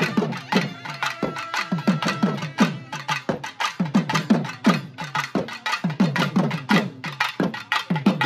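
Traditional Indian drums beaten in a fast, steady rhythm, the low strokes each sliding down in pitch.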